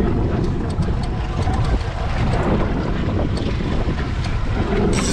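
Wind buffeting the microphone over a steady low rumble from the boat out on the open sea.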